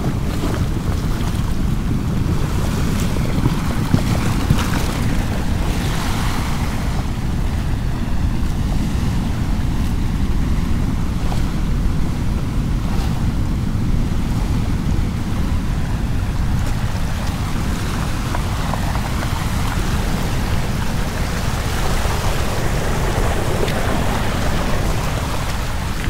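Ocean waves breaking and washing over shoreline rocks, with heavy wind rumble on the microphone. The wash swells about six seconds in and again near the end.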